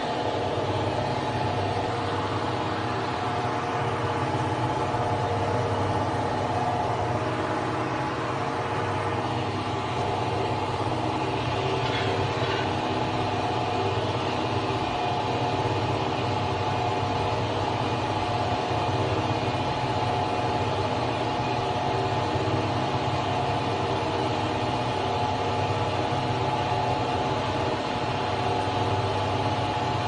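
Bottle washing machine running with a steady mechanical hum that holds an even level throughout.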